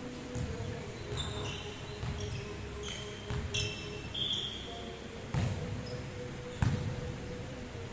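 Volleyball play on a wooden indoor court. Short high squeaks of sneakers come through the first half, then a volleyball is struck twice, about a second apart, over the second half, the hits echoing in the large hall.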